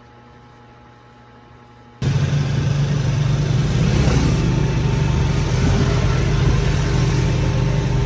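Faint room tone, then about two seconds in a sudden cut to the steady engine drone and road noise of a moving motorized tricycle, heard from inside its sidecar.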